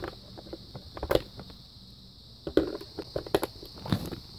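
AA batteries being pressed into the battery compartment of an AlertWorks EAR-10 weather radio: a few scattered plastic clicks and knocks.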